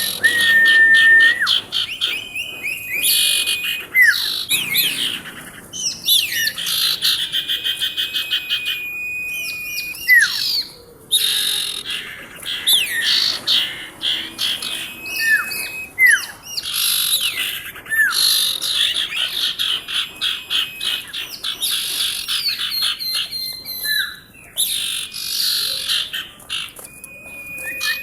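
Female common iora (sirtu) calling continuously with rapid chattering trills, short gliding whistles and now and then a held whistled note.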